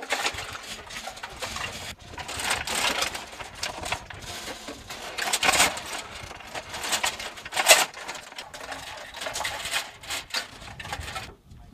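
Linked machine-gun ammunition belt being handled and fed from a metal ammo can, a steady irregular rattle and clinking of cartridges and links. Heavier metal clanks come a little past halfway and again about two-thirds through.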